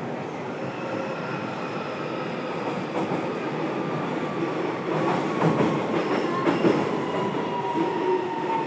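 JR Kyushu 303 series train's Toyo IGBT inverter and traction motors whining from inside the motor car, several tones falling slowly in pitch as the train slows. Wheels click over rail joints a few times around the middle.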